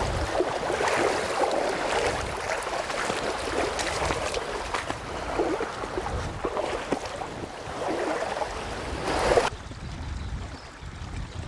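Boots sloshing and splashing through a shallow, flowing river as people wade across it, over the rush of the water. Near the end it cuts off suddenly to a much quieter background.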